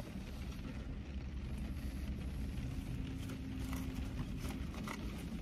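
Steady low rumble inside a car, with a hum that comes in for about two seconds midway, and faint clicks and rustles of a paper food box being handled during eating.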